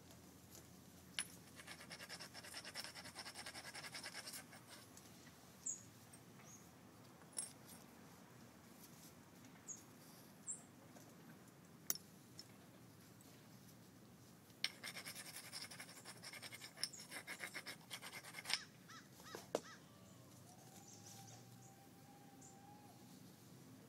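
Green sheen obsidian being knapped by hand: two spells of fast, scratchy ticking, each a few seconds long, as the stone's edge is worked, with single sharp clicks scattered between them. Faint throughout.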